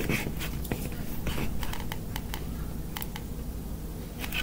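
Light, irregular clicks and taps of plastic balloon sticks being handled and fitted into a gift box, over a steady low hum.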